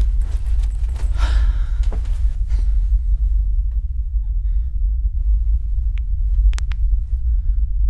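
A steady, deep low rumble underlies everything, with a man's heavy breaths over the first two or three seconds. Two or three sharp clicks come about six seconds in.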